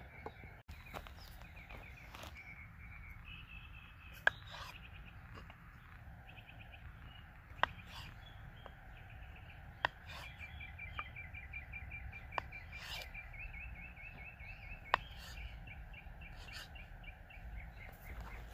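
Small birds chirping in repeated trilled phrases, with about five sharp knife taps on a wooden cutting board a few seconds apart as a sausage is sliced.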